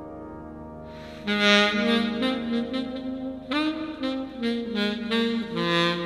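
Saxophone playing a melody line that comes in about a second in over a soft, held accompaniment, with a sliding note partway through.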